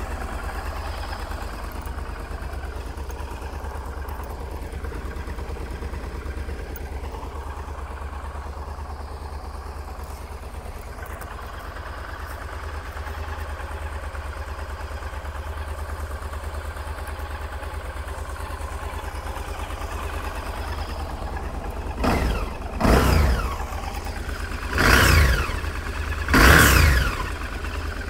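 2003 Honda XL1000V Varadero's fuel-injected 1000 cc V-twin idling steadily, then revved in four quick throttle blips near the end, each rising and falling in pitch.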